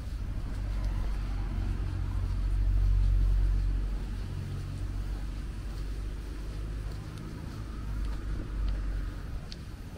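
Low engine rumble of a motor vehicle passing close by, loudest about three seconds in, with a smaller swell near the end.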